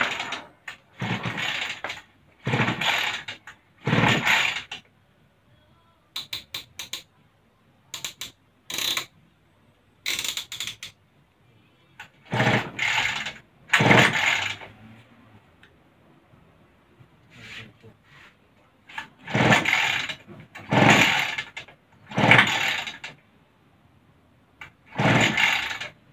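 Recoil pull-starter of a small petrol outboard motor being yanked again and again: about eleven hard pulls in groups, each a short rasping crank, with light clicks between. The engine does not catch, which is put down to too little warm-up.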